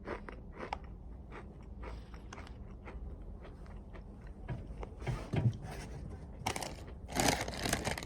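Takis rolled corn tortilla chips being chewed, with sharp crunches in the first second or two that settle into quieter chewing. Louder rustling noises come in from about five seconds in and are strongest near the end.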